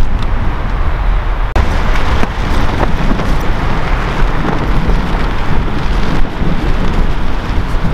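Storm wind buffeting a backpacking tent, the nylon walls flapping and rain hitting the fly, with heavy wind rumble on the microphone.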